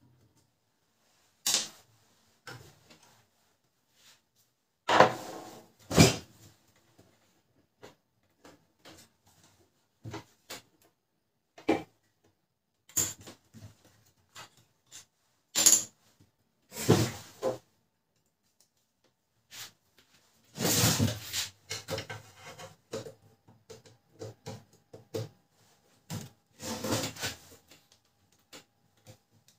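Irregular clicks, knocks and short clatters of the plastic and metal parts of a Canon LBP 2900 laser printer being handled and worked loose during disassembly.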